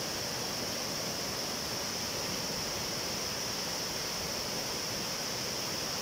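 Swollen, muddy flash-flood water rushing over rocks in a stream's rapids: a steady, unbroken roar of churning water.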